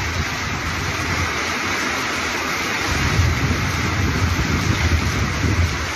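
Torrential rain pouring down steadily, with a low rumble that swells about three seconds in and again near the end.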